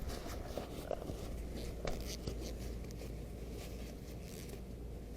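Scratchy rustling and light handling clicks of paper towels wiping down a car part, a little louder about two seconds in.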